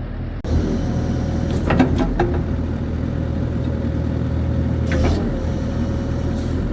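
Bobcat excavator's diesel engine running steadily, with a steady higher tone over it that bends and fades about five seconds in, and a few short knocks.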